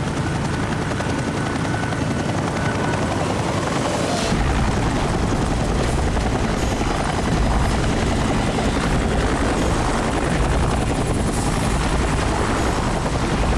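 Helicopter flying past, its rotor and engine running steadily; the low rotor sound grows stronger about four seconds in.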